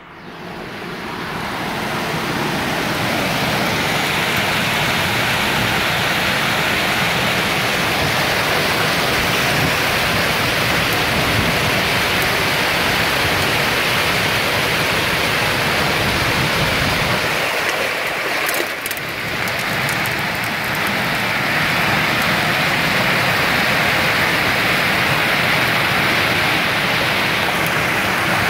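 Heavy hailstorm: hailstones and rain pelting down on cars, trees and pavement in a dense, steady rushing noise, which comes up loud over the first two seconds as a window is opened.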